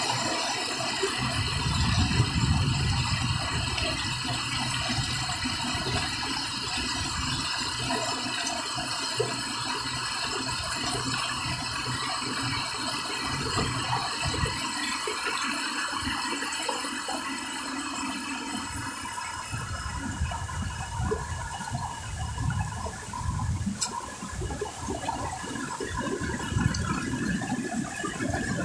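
Shallow river water rushing and splashing over boulders in a small rocky cascade, a steady rush.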